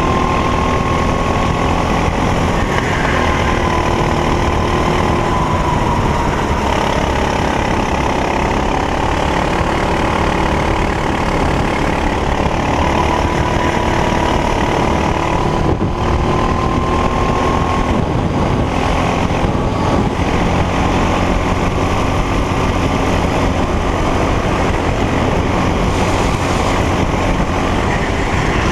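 Racing kart engine running hard on track, recorded onboard, its pitch climbing and dropping slowly over several seconds as the kart accelerates and brakes through the corners.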